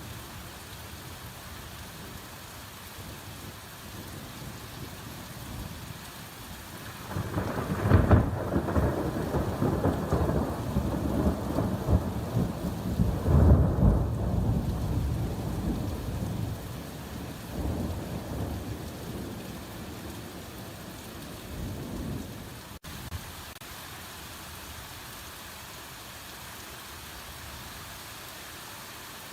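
Hard rain falling steadily. About a quarter of the way in, a long roll of thunder swells in twice and then rumbles away over the following several seconds.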